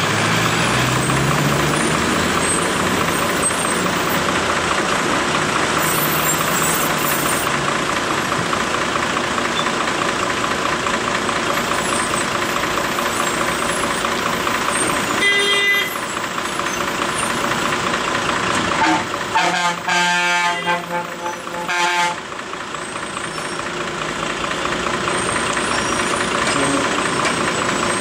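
Heavy truck engines running with steady road traffic noise. A short horn toot sounds about halfway through, then a few more horn blasts follow a few seconds later.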